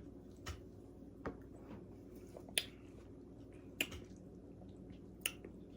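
Faint wet mouth sounds of someone tasting a soda: five soft, irregularly spaced lip smacks and tongue clicks over a low steady room hum.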